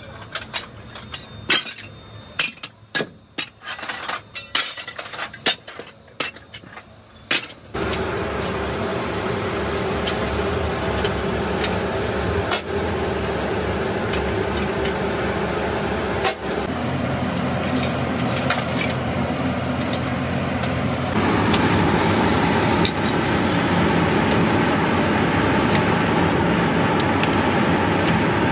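Pieces of cast-iron scrap clanking and clinking against each other in a run of sharp knocks. About eight seconds in, this gives way suddenly to a loud, steady machine drone with a hum in it, which grows louder twice later on.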